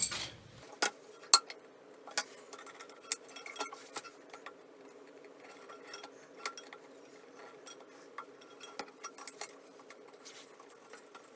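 Irregular metal clinks and taps of a long screwdriver working on a rusted toilet tank bolt, over a faint steady hum.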